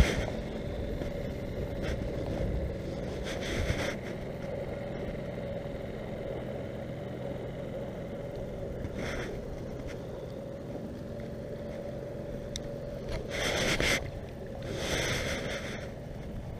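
Small motorboat's engine running steadily in the distance as a constant hum. Several short rushes of noise break over it, the loudest about fourteen seconds in.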